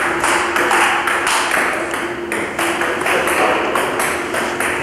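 Table tennis rally: a celluloid ball clicking off rubber-faced bats and bouncing on the table in a steady, even rhythm of about three hits a second.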